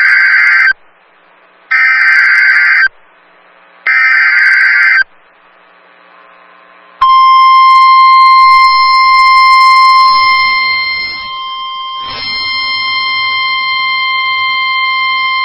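NOAA Weather Radio Emergency Alert System activation. First come short buzzy bursts of SAME digital header data: one ending just after the start, then two more about two seconds apart. About seven seconds in, the long steady single-pitch Warning Alarm Tone (1050 Hz) begins, signalling that a warning message, here a severe thunderstorm warning, is about to be broadcast.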